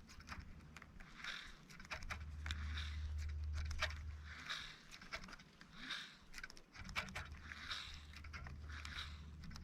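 A dog panting steadily, about three breaths every two seconds, with scattered light clicks and a low rumble underneath.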